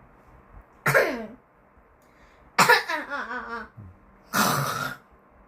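A child imitating heavy snoring with the voice: three loud, harsh snores. The first is short with a falling pitch, the second is the longest with a wavering pitch, and the third is rougher.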